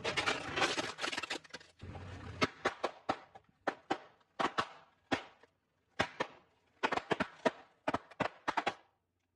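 A car tyre rolling onto a plastic toy motorcycle, crackling and crunching for about two seconds. Then a long string of sharp pops, singly and in quick clusters, as the tyre bursts a row of twisted balloon animals segment by segment.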